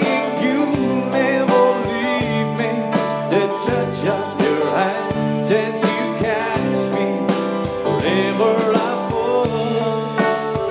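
Live pop band playing a slow song on electric guitar, bass guitar, drums and keyboard.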